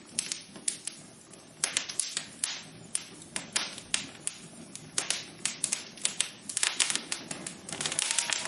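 Irregular sharp taps and clicks, some single and some in quick clusters, over a faint steady hum.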